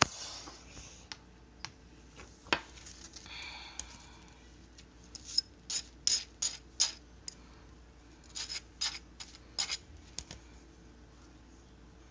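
A table knife scraping butter across a slice of toast in short, quick strokes. It comes in two bursts: one about five seconds in and another around nine seconds.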